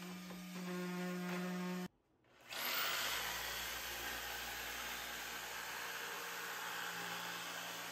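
A steady hum for about two seconds, a brief cut-out, then a handheld jigsaw running steadily as it cuts plywood.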